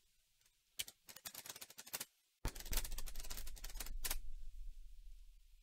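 Computer keyboard typing in rapid clicks: a short run about a second in, then after a brief pause a longer, denser run that thins out, with a low rumble under it.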